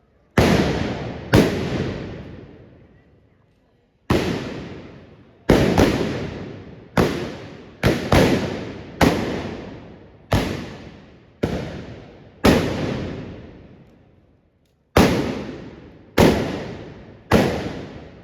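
Trabucs (Catalan blunderbusses) firing black-powder blank charges one after another: about fifteen loud bangs at uneven intervals, some nearly on top of each other, each followed by a long echoing decay.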